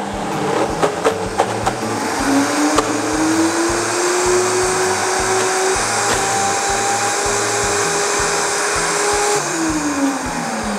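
Countertop blender motor running while blending ricotta cheese and sugar into a cream. The motor climbs in pitch about two seconds in, holds a steady whine, and winds down near the end.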